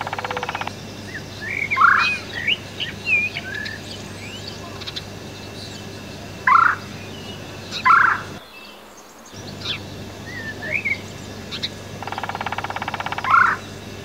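Woodpecker drumming: a rapid, even roll of taps about a second long at the start and again near the end. Between the rolls come several bird calls and chirps, the loudest being short harsh calls about halfway through, over a low steady hum that drops out briefly just after the middle.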